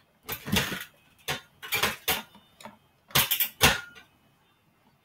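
Metal home gymnastics bar knocking and rattling in several short bursts as someone jumps up, grabs it and pulls up onto it.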